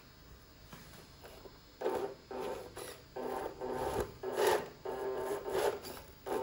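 Electric motor and gearbox of an RC Range Rover scale truck whirring in short throttle bursts as it climbs over sand and plastic blocks. The bursts start about two seconds in.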